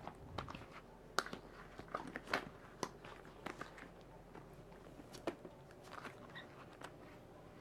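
Oiled latex gloves and rubber being worked on the arms and hands, giving irregular wet smacks, squeaks and clicks.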